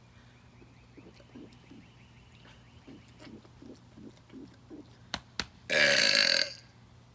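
A man swallowing air in a run of about ten soft gulps, two sharp clicks, then one loud belch lasting under a second, brought up by the swallowed air.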